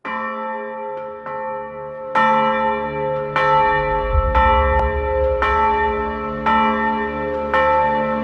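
A bell struck about once a second, each stroke ringing on into the next, the first few strokes softer. A low drone joins about halfway through.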